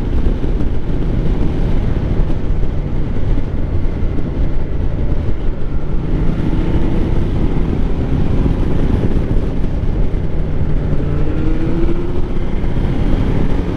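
Ducati Multistrada 1200's V-twin engine running under way with road and wind noise, its pitch rising twice as it accelerates.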